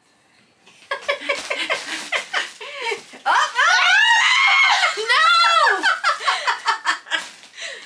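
Women laughing and squealing: quick bursts of laughter start about a second in, then two long high shrieks that rise and fall.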